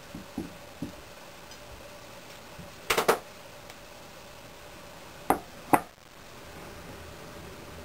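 Wooden frames of a two-part sand casting mould knocking against each other and the wooden workbench as the mould is opened and its halves set down: a quick clatter about three seconds in, then two sharp knocks about half a second apart.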